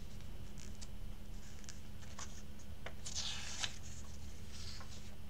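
Pages of a hardcover comic book being handled and turned, with small paper clicks and a brief rustle of a page a bit past halfway, over a steady low hum.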